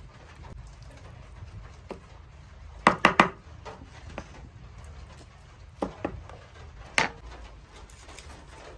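Sharp knocks of kitchenware on a wooden board: a quick run of three about three seconds in, then a pair and a single knock a few seconds later.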